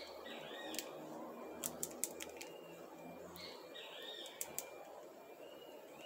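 A squirrel gnawing a small palm nut close by: sharp clicks and cracks of teeth on the hard shell, several in a quick cluster about one and a half to two seconds in and two more about four and a half seconds in. Birds chirp twice in the background.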